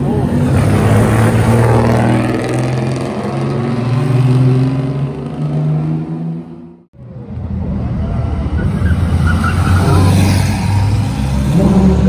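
Vintage car engines revving as they pull away, the engine note stepping up and down in pitch. The sound cuts off abruptly about seven seconds in, and another engine takes over.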